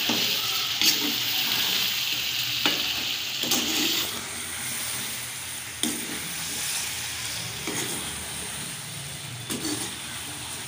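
Chicken pieces and softened tomatoes sizzling in a karahi on a gas flame while a metal spatula stirs them, scraping and knocking against the pan every second or two. The sizzle is strongest in the first four seconds, then settles lower.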